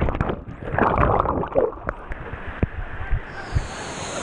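Water rushing and splashing around a waterproof action camera riding a water slide, with scattered knocks against the slide. The sound is muffled at first and turns brighter and hissier about three seconds in.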